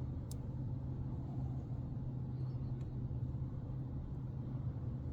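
Steady low electrical hum of HVAC equipment running just after power is restored to an Aprilaire steam humidifier. A sharp click comes shortly after the start, and a fainter click follows about three seconds in.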